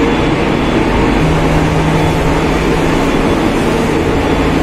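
Loud, steady hum of a row of split air-conditioner outdoor units running, their fans and compressors droning, with a low steady tone joining about a second in.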